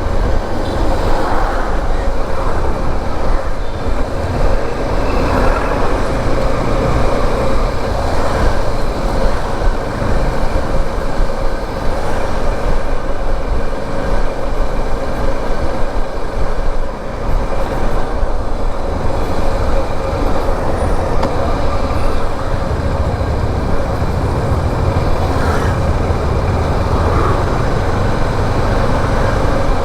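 Motorcycle on the move: steady rush of wind and road noise over the rider's microphone, with the engine running underneath.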